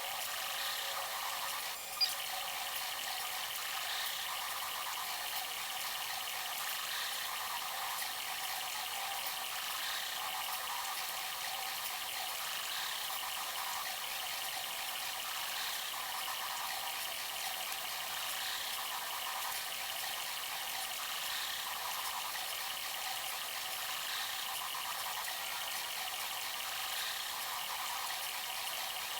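Bambu Lab A1 3D printer running a print: a steady whir of its motors and fans, with faint movement sounds coming back every few seconds. There is one sharp click about two seconds in.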